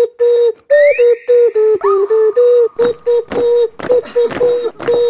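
Homemade ocarina made from a plastic PET bottle, blown through a straw, playing a quick string of short toots at about three a second. The toots stay mostly on one note, with a few slightly lower ones. A thin, rising whistle-like glide sounds about a second in.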